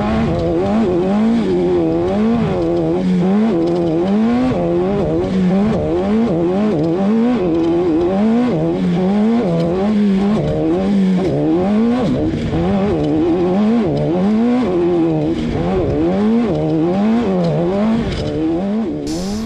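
Off-road race car engine running hard, its revs swooping up and dropping back again and again, about once a second.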